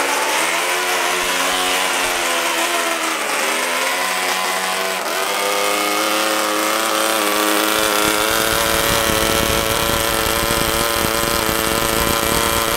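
NR-200 miniature two-cylinder four-stroke gasoline engine running on the bench with a high, buzzing note. Its speed wavers up and down through the first half while it is adjusted by hand, then settles into a steady, slightly higher note.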